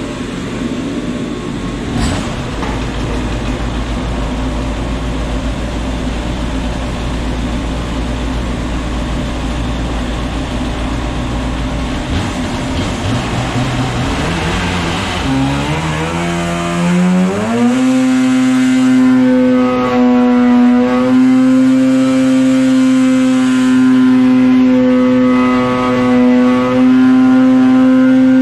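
Stock 2016 Polaris Axys 800 two-stroke twin snowmobile engine, with stock exhaust pipe and silencer, on a dyno pull. It runs at low revs, revs up over a few seconds about halfway through, then holds a steady high-pitched tone at wide-open throttle near 7,700 rpm under the dyno's load.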